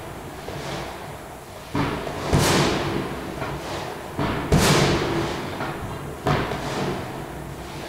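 Fireworks going off outside, about five sharp bangs, each trailing off in a rolling echo; the two loudest come about two and a half and four and a half seconds in.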